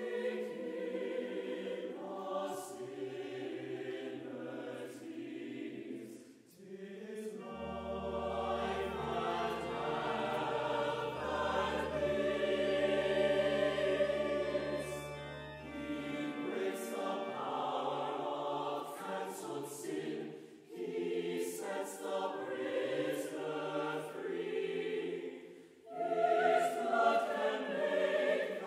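Mixed choir singing sustained chords with an accompanying brass and wind ensemble. Deep held bass notes come in about 8 seconds in and drop out around 16 seconds, and the music briefly breaks between phrases a few times.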